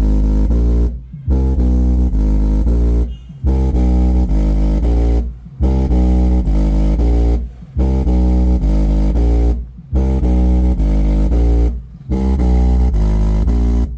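Music played loud through an Ahuja N18-SW1800 1800 W neodymium 18-inch speaker driver, heavy in bass with little treble. The music breaks off briefly about every two seconds.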